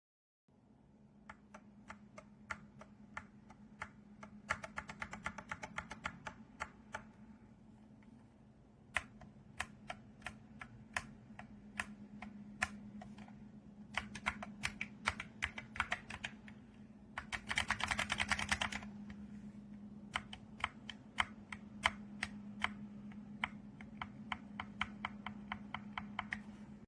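Typing on a Redragon K617 60% mechanical keyboard: runs of key clicks broken by short pauses, with a fast flurry of keystrokes a little past halfway, over a steady low hum.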